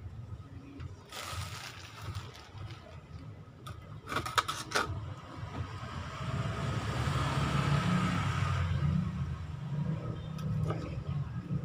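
A short rustle and a few sharp clicks in the first half. Then a passing vehicle's rumble and hiss swells, peaks and fades in the second half.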